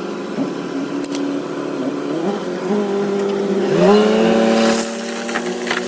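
Diesel engine of a heavy earthmoving machine running and revving up twice, about two seconds in and again near four seconds, with a rattling, scraping clatter joining in over the second half.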